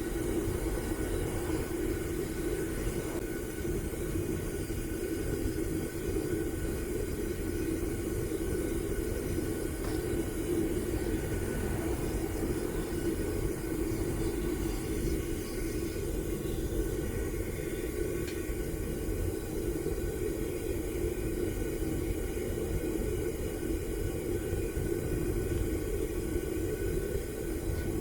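Homemade propane furnace running: the burner makes a constant, even rumble while brass melts inside.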